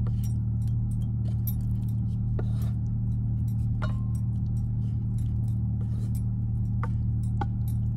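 Light clinks and taps of containers and utensils as ingredients are poured into a slow-cooker insert, over a steady low hum.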